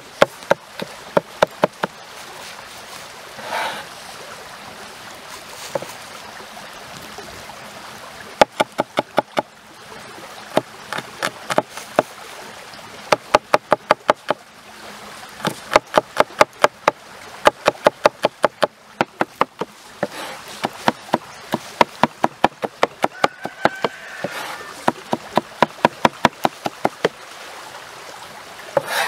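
Large kitchen knife rapidly chopping garlic on a wooden cutting board: quick runs of sharp knocks, several a second, broken by short pauses.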